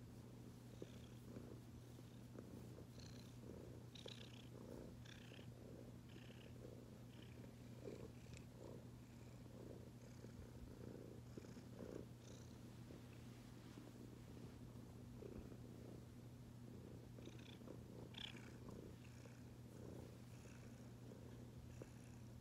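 Domestic cat purring faintly while being stroked, a steady purr that swells in soft pulses about once a second with its breathing.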